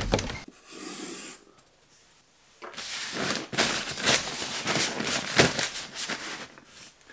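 Sharpie marker scratching across paper in several strokes, crossing out a line on a handwritten list, after a short thump at the very start.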